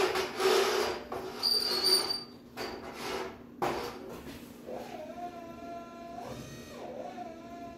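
Clattering and knocking as a metal pail and a scale are handled at a lifting trolley, then from about five seconds the trolley's electric lift motor runs with a steady whine that dips briefly in pitch partway through.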